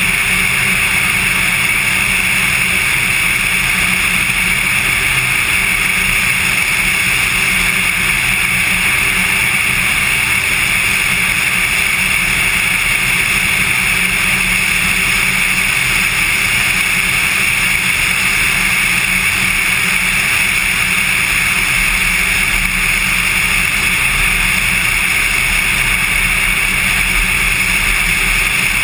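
Cessna 182 single-engine light aircraft in flight: its piston engine and propeller drone steadily, with an even hiss, and no change in pitch or level.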